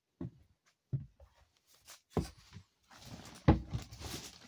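Footsteps thumping on a steep wooden stair as someone climbs it, a step about every second, the heaviest thump about three and a half seconds in, with a stretch of rustling near the end.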